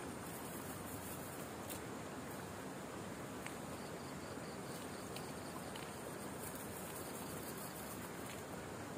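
Steady high-pitched chorus of night insects, flickering rapidly, over a constant low hiss.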